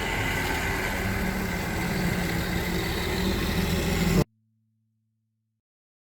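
Off-road vehicle engine running steadily at low speed under a steady hiss; the sound cuts off suddenly about four seconds in, leaving silence.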